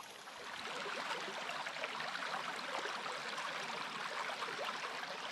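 A small rocky stream running over stones through a shallow riffle: a steady rush and babble of moving water.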